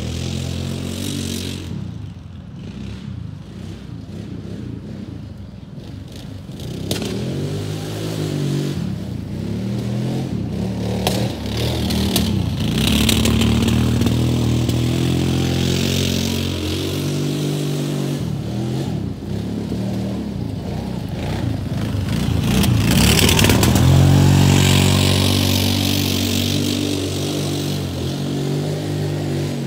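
Kawasaki Brute Force 750 ATV's V-twin engine revving up and down as it spins donuts in dirt. It drops away a couple of seconds in as the quad drives off, then grows louder as it comes back, loudest about three-quarters of the way through.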